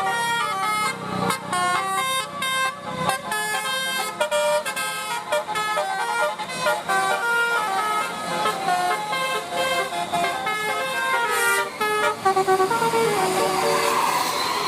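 Basuri 'telolet' bus horn playing a fast tune of short, changing notes. Near the end the notes thin out under a steady rushing noise.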